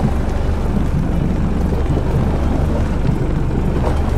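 Steady wind rushing over the microphone above a low, even rumble from the boat under way on the sea.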